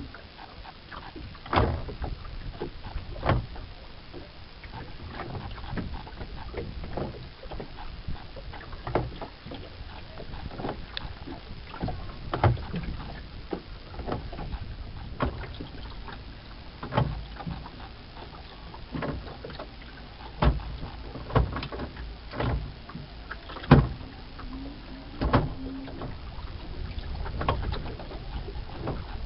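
A single sculling oar knocking and creaking in its stern mount on a small wooden rowing boat as it is sculled along. Irregular sharp knocks come every second or two, the loudest about three-quarters of the way in, over a steady wash of water and breeze.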